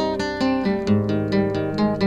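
Music: a fast, even run of picked notes over held chords, with a deeper bass note coming in about a second in.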